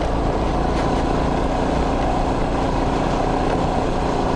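Honda Lead 125 scooter's single-cylinder four-stroke engine running steadily as the scooter is ridden along a dirt forest track.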